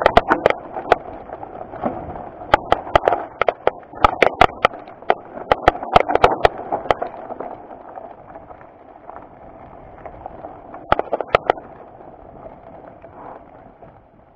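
Mountain bike descending a rocky trail: sharp clacks and rattles from the bike over the rocks come in dense clusters, over a steady rolling noise. The rattling eases after about seven seconds, with one more short burst around eleven seconds, and the rolling noise grows quieter near the end.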